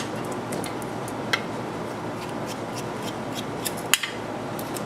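Small metallic clicks and taps of a folding knife and tools being handled at a workbench, the two loudest about a second in and near the end, over a steady hiss of shop background noise.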